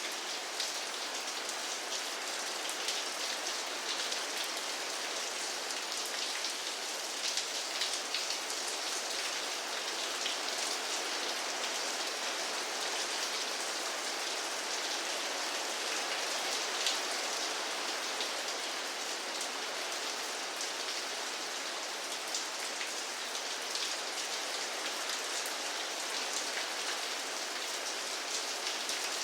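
Steady rain falling and pattering on a surface, with many individual drops ticking throughout.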